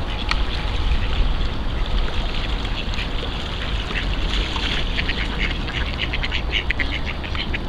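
A flock of mallards quacking, many short calls overlapping, growing thicker in the second half, over a steady low rumble.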